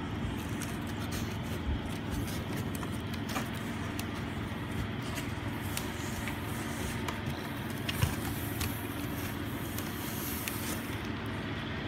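Steady low rumble with a faint hum and a few light knocks, the sharpest about eight seconds in; no cat calls.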